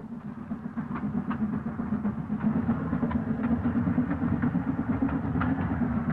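Steam locomotive hauling an express train at speed: a fast, pulsing running rumble with scattered faint clicks, growing louder over the first couple of seconds and then holding steady.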